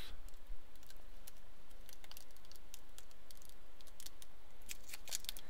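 Protective plastic film being peeled off an acrylic sheet smeared with wax crayon, giving faint, scattered crackles and ticks as it lifts away.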